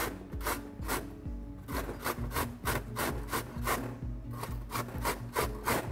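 Carrot being grated on a metal box grater: repeated rasping strokes, about two to three a second, with a short pause about a second in.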